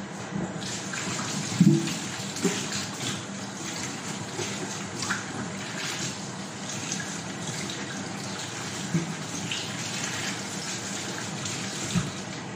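Kitchen tap running steadily into the sink while a large watermelon is washed, with a few dull knocks against the sink, the loudest about a second and a half in.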